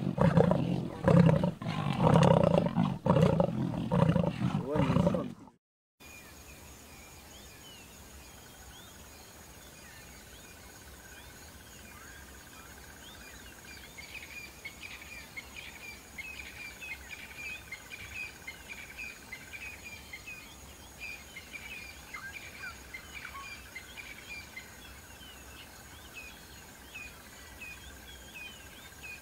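A lioness growling over a kill in deep, pulsing snarls, one to two a second, cut off abruptly after about five seconds. Then a quieter natural ambience of birds chirping over a steady insect drone, the chirps busiest in the middle.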